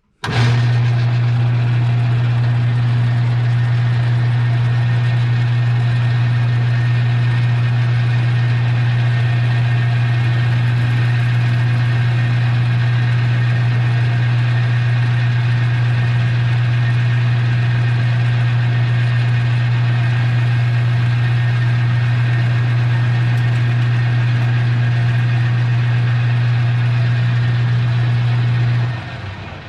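Metal lathe starting up and running steadily with a strong low motor hum while facing off the end of a 1/2-inch bolt; it winds down near the end.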